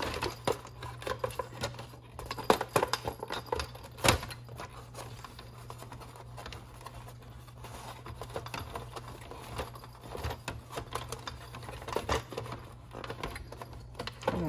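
Hands handling the hard plastic parts of a Big Mouth Billy Bass singing fish during reassembly: irregular plastic clicks, taps and light rustling, the sharpest knocks about two and four seconds in, over a steady low hum.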